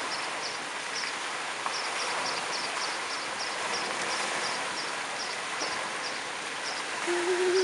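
Steady rush of splashing pool water and fountains, with a small bird chirping high above it two or three times a second.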